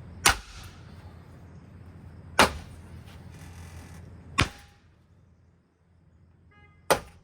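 Four hard blows about two seconds apart as a ceiling fan is smashed, each a sharp crack with a brief ring. A low steady hum underneath stops about two-thirds of the way through.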